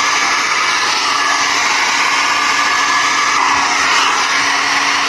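Handheld hair dryer blowing steadily with its concentrator nozzle removed: an even rushing hiss of air with a faint steady motor hum underneath.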